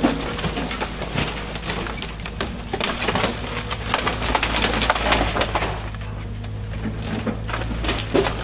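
Wooden outbuilding frame cracking and splintering as an excavator pushes it over, with a rapid run of sharp snaps, busiest a few seconds in and again near the end. Under it runs the steady low hum of the excavator's engine.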